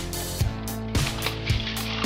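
Background music with a steady beat, a drum hit about twice a second over sustained guitar-like tones.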